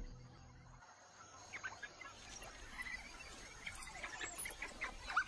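Faint high-pitched animal chirps and squeaks, scattered and short, over quiet outdoor ambience; background music fades out in the first second.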